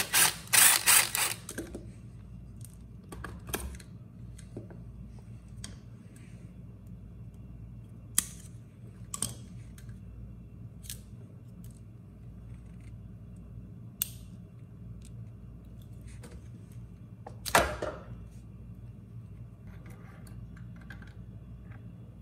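A cordless power driver runs in a few short bursts near the start, backing out a bolt on the generator's alternator end housing. Then come scattered light clicks and clinks of small metal parts and wire connectors being handled, with one louder clack late on.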